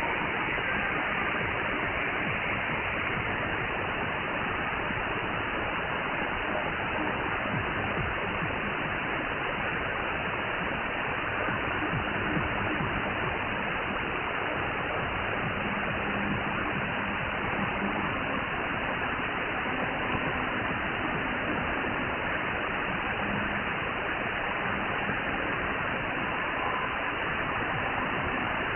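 Shortwave radio static: a steady hiss of band noise from a receiver in synchronous AM mode, tuned to a weak pirate station on 15795 kHz, with only faint traces of tones under the noise.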